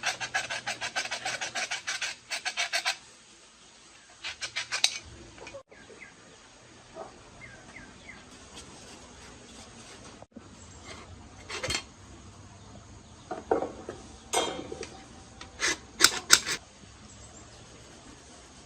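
Rapid rhythmic scraping strokes of a hand tool working metal parts of an old rice milling machine, followed after a pause by a few scattered sharp metal knocks and clinks, the loudest bunched together near the end.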